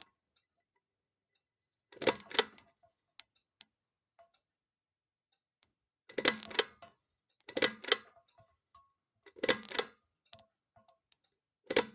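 Ceiling fan pull-chain switch being clicked five times, each pull a quick double click, with no motor sound following: the fan does nothing when switched, which the owner suspects is a faulty pull-chain switch.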